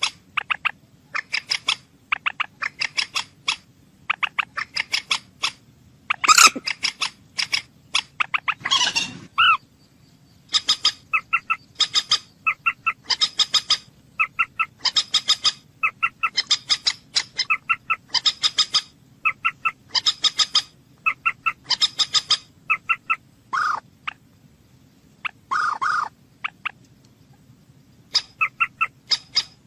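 Moorhen calling in quick runs of short, sharp notes, several notes to a run, the runs repeating every second or so. A few longer, lower calls break in here and there.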